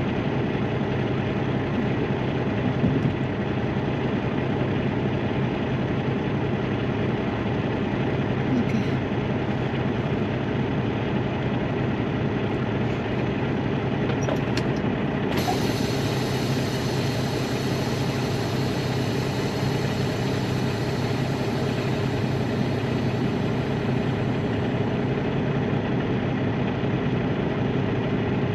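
Heavy truck's diesel engine idling steadily. A faint high hiss comes in about halfway through.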